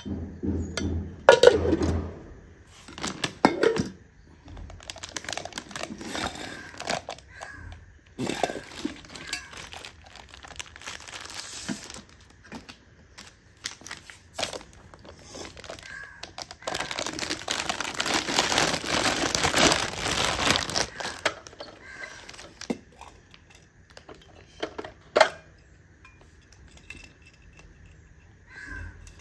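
Plastic wrapping crinkling and rustling around a mixer grinder's motor base, mixed with sharp clicks, knocks and clinks from stainless steel jars and plastic lids being handled. A long stretch of rustling comes past the middle. The loudest knocks come near the start and again late on.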